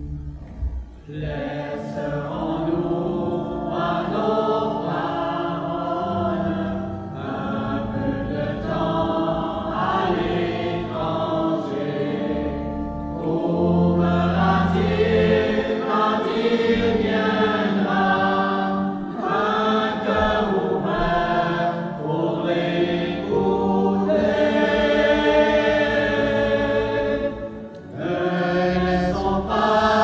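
Mixed church choir of men and women singing a hymn together, phrase after phrase, with a brief pause near the end.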